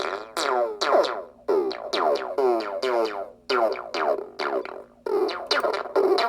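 Small electronic synthesizer noise box playing a stream of short blips, about two a second in an uneven rhythm, each one sliding down in pitch as it fades.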